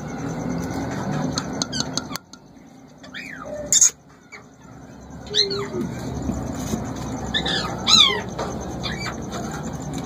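A few short parrot calls, each falling in pitch, about three, five and eight seconds in, over a steady background noise, with a sharp click just before four seconds.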